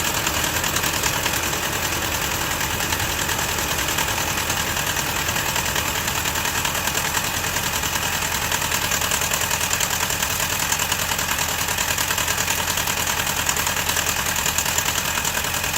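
Toyota 22RE 2.4-litre four-cylinder engine running steadily with a fast, even, diesel-like ticking clatter. The ticking showed up after the valve lash was adjusted and tightened to .007 intake and .011 exhaust. The owner has ruled out broken timing chain guides and the chain hitting the valve cover.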